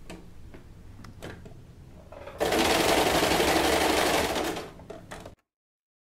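Fabric handled under a domestic sewing machine with a few light clicks, then the machine runs steadily for about two seconds, zigzag-stitching elastic onto the lower band of a bra, and slows before the sound cuts off suddenly.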